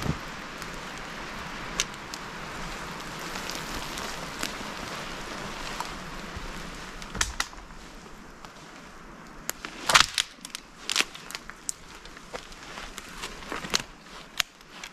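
Dead branches being snapped and broken while gathering firewood. A series of sharp cracks and snaps comes in the second half, the loudest about ten seconds in, after a stretch of steady background hiss.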